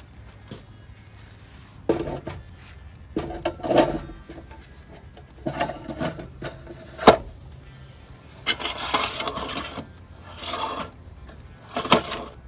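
Scraping, rubbing and knocking of parts being handled at an oil-bath air cleaner, in several short irregular bursts, with a sharp click about seven seconds in.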